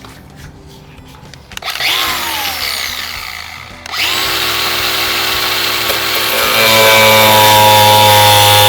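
Handheld power tool cutting into the bus's side wall. It starts about two seconds in with its motor spinning up, stops briefly about halfway, then runs again and grows louder near the end.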